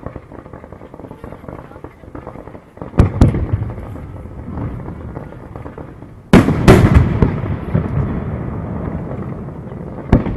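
Aerial fireworks shells bursting. A pair of sharp bangs comes about three seconds in, and two louder bangs a little past six seconds, each followed by a long rolling rumble. Another bang comes just before the end.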